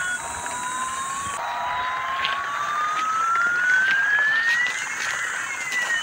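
A battery-powered toy airliner's electronic jet-engine sound effect: a single whistling tone that rises slowly for about five seconds, then starts to fall near the end. A few faint clicks sound with it.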